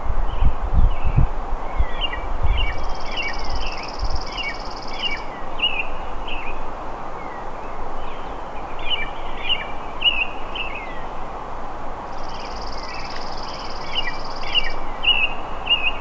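Wild songbirds singing in the morning: repeated quick phrases of short chirping notes, and twice a long, even, high trill, over steady outdoor background hiss. A low rumble is heard in the first couple of seconds.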